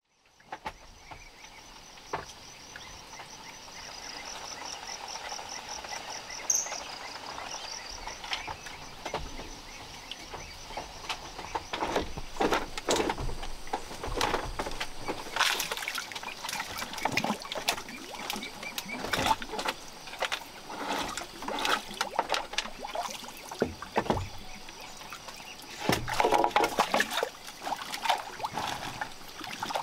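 A high, finely pulsing insect drone for the first several seconds, with a brief chirp. Then a run of short knocks and, near the end, water splashing as a bamboo raft is handled in the lake.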